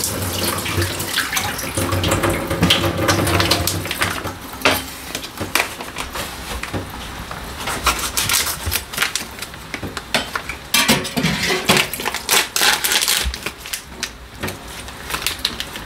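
Water running from a kitchen tap for the first few seconds, then dishes and utensils being handled at the sink, with scattered sharp knocks and clinks.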